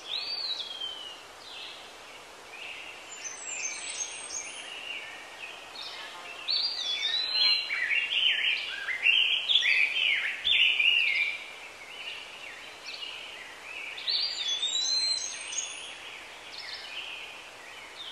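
A chorus of many birds chirping and whistling, with short calls sweeping up and down in pitch over a steady background hiss. The calls are densest and loudest from about six to eleven seconds in.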